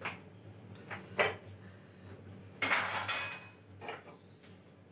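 Pots and metal utensils clinking and knocking on a kitchen counter beside a gas stove as it is cleared for wiping. There are a few separate knocks and a longer rattling clatter about two and a half seconds in.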